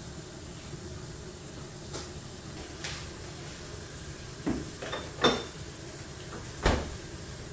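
Steady room noise with a handful of short, sharp knocks and clunks, five in all, the loudest a little past the middle.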